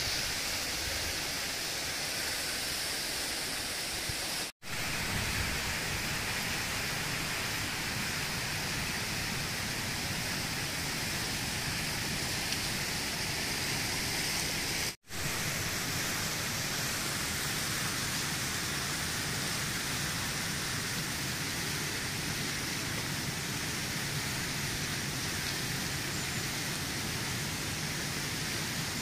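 Fountain jets spraying and splashing down into their pools: a steady, rain-like rushing hiss. The sound drops out completely for a moment twice, about four and a half seconds in and again about fifteen seconds in.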